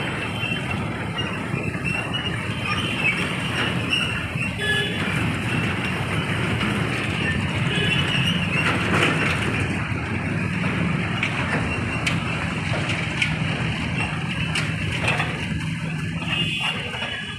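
Heavy machine's engine running steadily, a continuous low hum under a wash of mechanical noise, with faint voices in the background.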